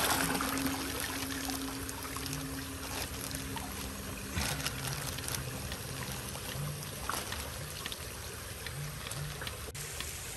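Water trickling and splashing at a pond's surface, with light rain falling on the water. A faint low hum runs under it for the first few seconds.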